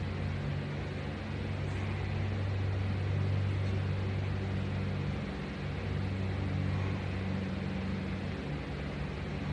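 Steady low hum over an even hiss, with no speech: background room noise.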